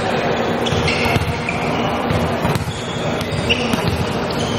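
Athletic shoes squeaking in short high chirps on a wooden gym floor, with a couple of sharp knocks, in a large echoing hall.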